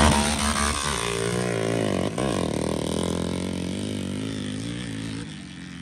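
Sport ATV engine revving hard as it launches and accelerates away down a dirt drag strip. Its pitch climbs through the gears, with a brief break for a shift about two seconds in. It fades as the quad pulls away.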